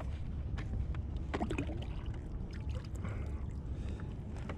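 Water trickling and sloshing around a kayak under a steady low rumble, with scattered small clicks and knocks of a fish and gear being handled on board.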